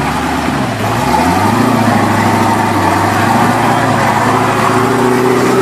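Rock-crawler buggy engine running, its revs rising about a second in and then holding steady and high while the buggy lies tipped on its side.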